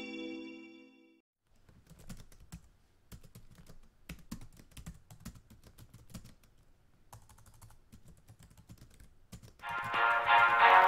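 Quiet, irregular clicking and typing on a computer keyboard, in quick runs with short pauses. A chord fades out in the first second, and loud music comes in about a second before the end.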